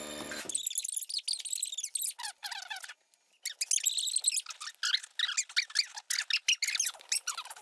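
Sped-up film dialogue, the voices pitched up into rapid, squeaky chipmunk-like chatter, with a short pause about three seconds in.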